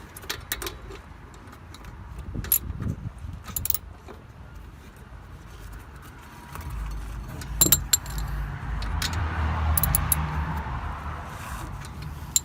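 Scattered metal clinks and light knocks from hands and tools working at the front brake caliper, whose replacement mounting bolt has just been tightened so the caliper no longer shifts and bangs. A low rumble rises in the second half.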